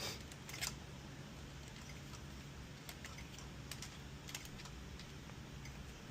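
Light, scattered clicks and taps of tools handled on a circuit board during desoldering, over a faint, steady low hum. The first two clicks, right at the start and just over half a second in, are the loudest.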